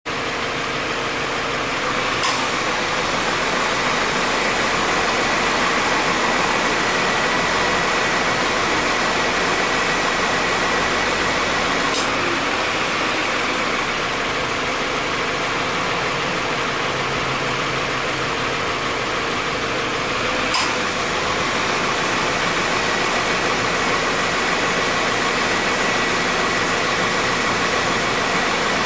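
Idling engine of a 2016 Subaru XV with the air-conditioning compressor running, with no abnormal noise from the compressor. A short click sounds three times, about ten seconds apart.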